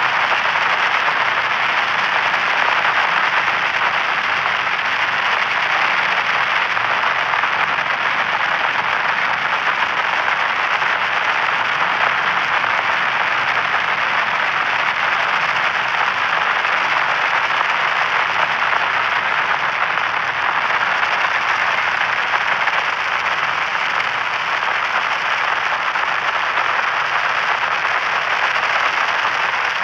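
White-noise static: a steady, even hiss that holds constant throughout, strongest in the middle pitches with little deep bass or high treble.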